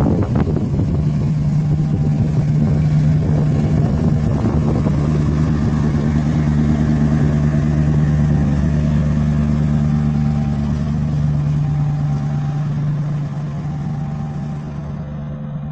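CC206 diesel-electric locomotive's engine running loud under power as the train departs, a steady low drone that eases off slightly near the end.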